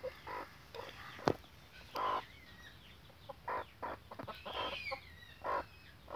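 Chickens clucking in a string of short calls, with the thin, falling peeps of small chicks. A single sharp click about a second in.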